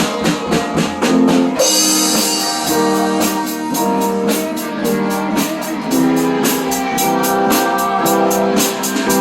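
Pop-rock band playing on drum kit, guitar, bass and keyboard, with a steady drum beat under held chords; a cymbal crash comes about a second and a half in.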